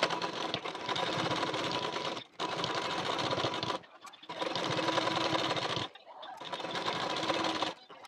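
Black domestic straight-stitch sewing machine running, stitching through cotton fabric in four runs broken by short pauses as the fabric is repositioned.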